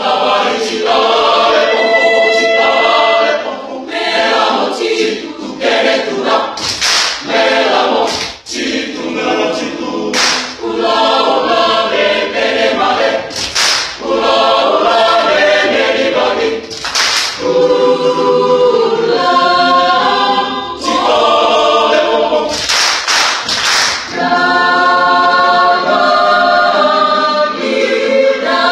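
A choir singing a cappella: full held chords, with crisp 's' consonants standing out at intervals.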